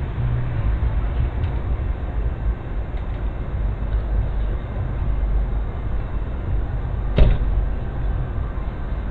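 Vehicle engine idling: a steady low rumble, with a single sharp click about seven seconds in.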